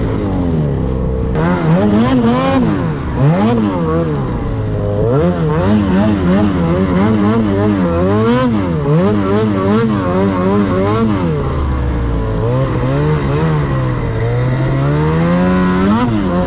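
Snowmobile engine revving up and down over and over as the throttle is worked while riding through deep powder.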